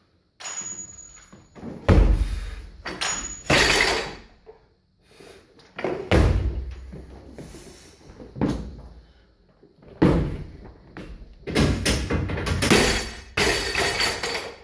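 Loaded barbell with rubber bumper plates during a clean and jerk: a series of sharp clanks and heavy thuds as the bar is pulled, racked and driven overhead. Near the end comes a run of thuds as the barbell is dropped and its bumper plates bounce on the platform.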